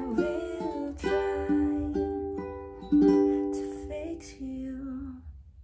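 A ukulele in standard G-C-E-A tuning played in chords, each strum struck sharply and left to ring; the last chord dies away about five seconds in.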